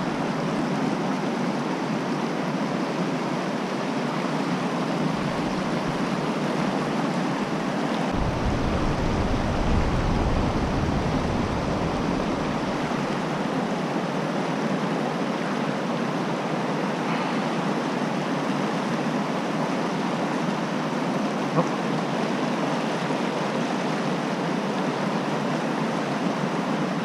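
Fast-flowing creek water rushing steadily over rocks. A low rumble joins for several seconds about eight seconds in.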